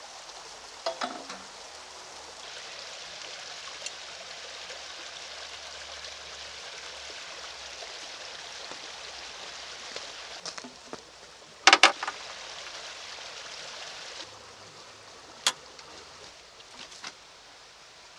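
A few sharp metallic clicks and clanks from handling the small diesel locomotive's engine and bodywork, the loudest a quick pair about twelve seconds in, over a steady even hiss. The engine is not running.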